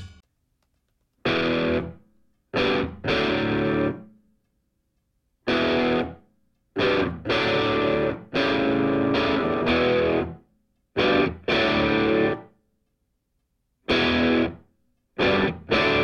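Background rock music: distorted electric guitar chords in short stop-start phrases, divided by gaps of dead silence.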